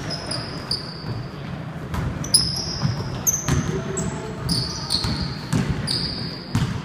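A basketball bouncing on a hardwood gym floor, with many short, high sneaker squeaks as players cut and stop.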